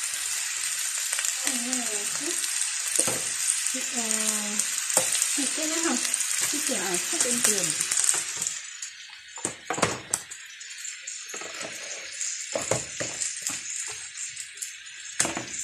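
Chicken wings with carrots and onion sizzling as they fry in a wok, a steady hiss. After about eight seconds the sizzle drops away and a few sharp knocks and clatters follow, as from plastic food containers being handled.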